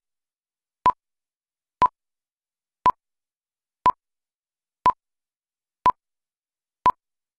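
Countdown-leader beeps: a short, pure electronic beep once a second, seven times, with silence between.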